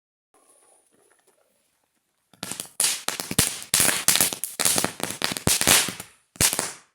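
Firecrackers going off in a rapid series: about a dozen sharp, loud bangs over some four seconds, with one last bang just before the end. A faint sound comes first.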